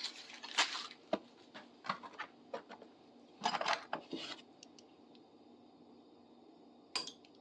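Metal hand tools clinking and rattling as they are picked out of a bucket and set down: scattered clinks, a busier cluster about halfway, then a pause and one last sharp clink near the end.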